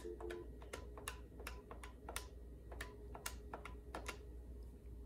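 Keys on an NEC SV9100 desk phone's keypad pressed one after another: a dozen or so soft clicks at an uneven pace as 9 and a ten-digit outside number are dialled. A steady two-tone dial tone from the phone stops about half a second in, at the first key press.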